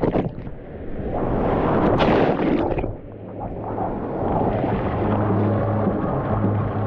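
Whitewater rapids rushing and splashing over a kayak and the camera, with sharp water hits at the start and about two seconds in.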